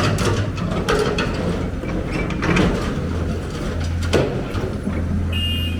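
Heavy construction machine's diesel engine running steadily, with a string of sharp metallic clanks and knocks over it and a short high-pitched tone near the end.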